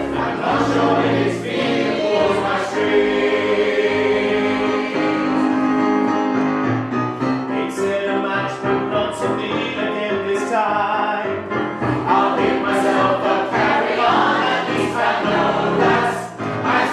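Mixed choir singing in parts, the voices holding long sustained notes with crisp consonants between phrases.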